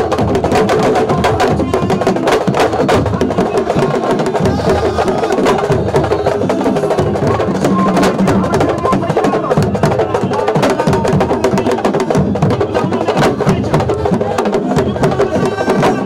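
Rapid, continuous traditional hand-drumming of the kind played by sabar drum ensembles at Senegalese wrestling, with singing or chanting voices over the beat.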